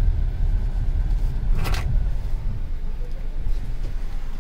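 Steady low rumble of a Kia car being driven, heard from inside the cabin, with a brief knock about one and a half seconds in.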